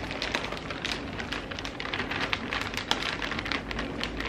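Plastic bag of shredded mozzarella crinkling and crackling as it is handled and tipped out, a dense run of irregular small crackles.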